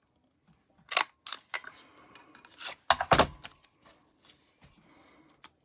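Handheld plastic paper punch box being squeezed to punch a label shape out of cardstock: a run of sharp plastic clicks and clunks, the loudest with a dull thud about three seconds in as the punch goes through, with light paper rustling between.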